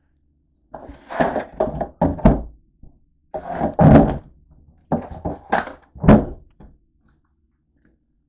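Handling noise: clusters of knocking thumps and rustling as the phone and nearby things, such as a plastic bag, are moved about, in several bursts over about six seconds.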